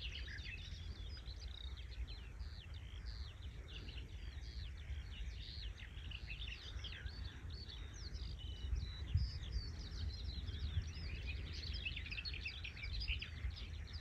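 Dense, continuous birdsong of quick chirps and sweeping whistled notes, with a low steady rumble underneath.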